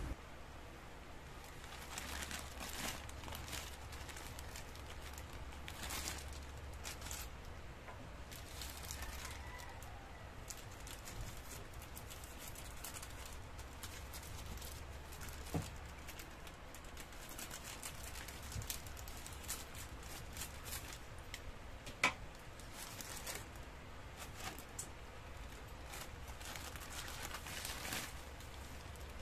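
Plastic courier mailer pouch crinkling and rustling as it is handled and cut open with scissors, in irregular crackles. Two sharp clicks in the second half, the second the loudest.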